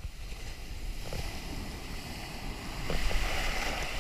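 Breaking surf washing around a camera held low in the water: rushing, churning foam that swells louder about three seconds in as a wave surges past.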